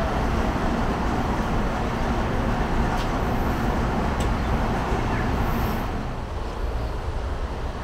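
Steady background rumble and hiss with a faint low hum, like distant machinery or traffic, easing slightly about six seconds in.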